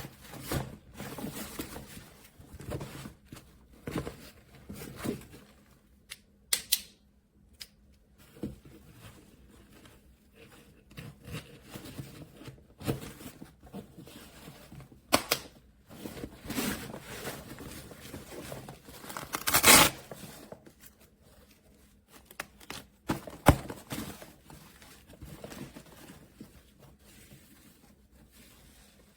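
A soft-sided pistol case bag being handled: irregular rustling, scrapes and knocks, with a loud tearing rasp about twenty seconds in.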